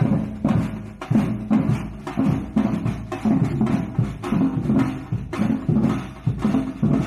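Samba percussion band playing surdo bass drums and other hand and stick drums together in a steady, repeating groove.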